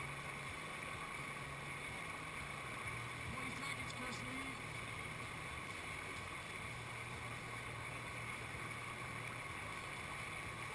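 Steady, faint rush of whitewater from a river play wave, without any distinct splash or knock.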